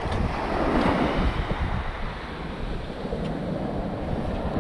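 Small North Sea waves washing onto a sandy beach, swelling about a second in, with wind buffeting the microphone as a low rumble.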